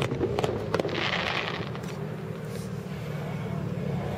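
Fireworks going off: a few sharp pops in the first second and a brief hiss about a second in, over a steady low rumble.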